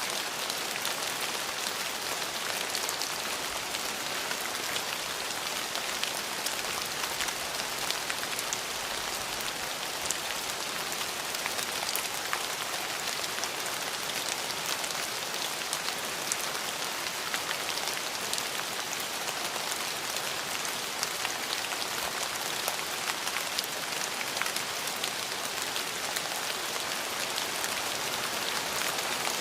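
Steady rain falling, an even hiss full of fine scattered drop ticks, with no thunder.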